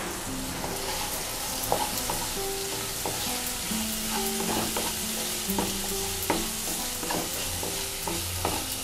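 Chopped onions and curry leaves sizzling in hot oil in a ceramic-coated kadai while a wooden spatula stirs them, knocking and scraping against the pan every so often. The onions are being fried with salt and turmeric to soften them.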